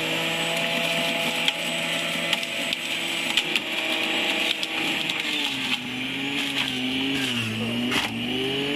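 Electric centrifugal juicer (Selecline) running, its motor whining steadily while it shreds carrot, beetroot and apple, with scattered clicks of pieces against the spinning basket. About two-thirds of the way through its pitch sags for a couple of seconds as it labours under the load, then climbs back near the end.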